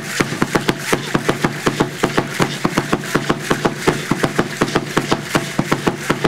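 Drumming for Azteca dance: a fast, steady beat of sharp drum strikes, about four a second.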